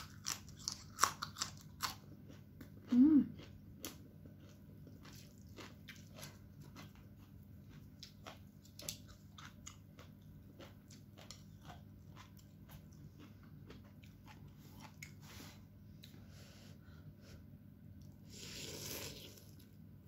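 Close-up eating sounds. A raw yard-long bean is bitten with loud crunches in the first couple of seconds and chewed with steady small crunching clicks, with a short hum about three seconds in. A brief slurp of noodles comes near the end.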